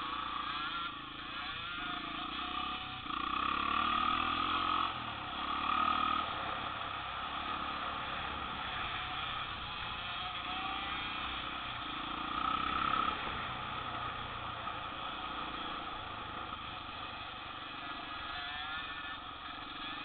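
Small dirt bike engines running along a gravel road, the engine note rising and falling with the throttle. It is louder about three to six seconds in and again around twelve seconds.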